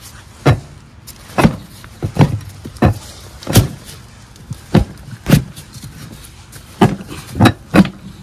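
About ten sharp knocks at uneven intervals as an ATV wheel is worked loose and pulled off its hub.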